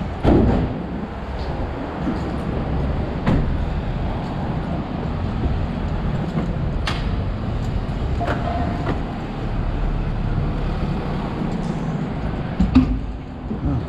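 City street noise: a steady low rumble of traffic and parked vehicles, broken by a few sharp knocks and clicks.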